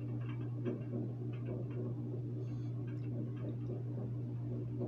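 A steady low hum with faint ticking, about three ticks a second, under a pause in speech.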